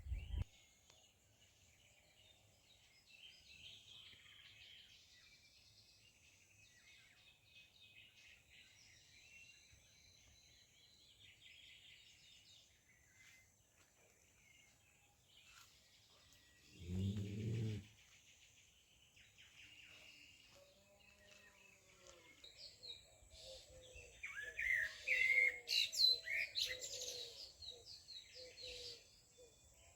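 Small birds chirping and singing in a loose chorus, busiest and loudest about three quarters of the way in. A brief, louder, low-pitched call cuts in a little past halfway, and a steady run of lower repeated notes starts soon after.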